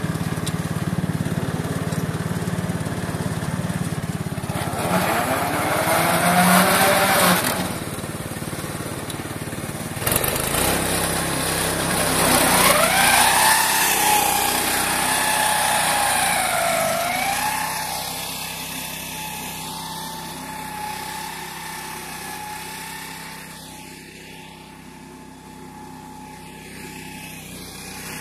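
Engine of a mowing machine with a chain shredder running, revving up about five seconds in and again about twelve seconds in, then holding a steady whine that fades toward the end.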